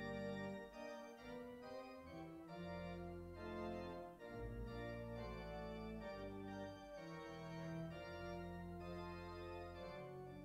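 Organ playing slow, sustained chords over held deep bass notes, with the chords changing every second or so.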